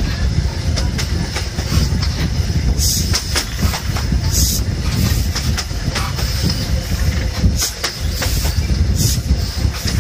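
InterCity 125 High Speed Train coach running at speed: a steady rush of rolling wheels and rumble with irregular sharp clicks from the wheels on the track. Heavy wind rush on the microphone held out of the window, with short gusts of hiss about three and four and a half seconds in.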